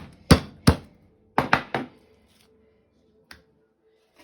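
Sharp knocks on a cutting board: three in quick succession, then three more about a second later, and a faint one near the end.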